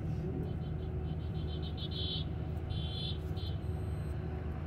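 Inside an Olectra K9 electric bus on the move: a steady low rumble of road and drive noise fills the cabin. From about half a second to three and a half seconds in, a rapid run of high-pitched chirps sounds over it, loudest about two seconds in.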